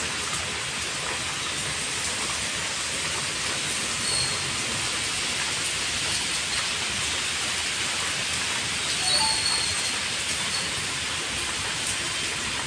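Heavy rain pouring steadily onto wet paved ground, an even, unbroken hiss.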